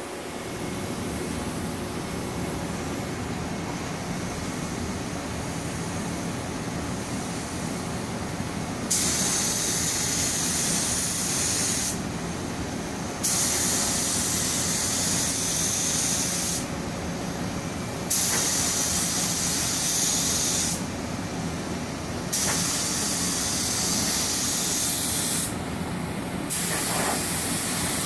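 Compressed-air paint spray gun hissing in five bursts of about three seconds each, the first about nine seconds in, as paint is sprayed, under steady lower background noise.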